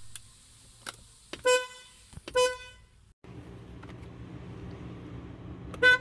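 Peugeot car horns pressed from the driver's seat: two short single-note blasts about one second apart early on. After a cut, a steady low hum and one brief blast near the end from a 2005 Peugeot 1007's horn, awful but pretty loud.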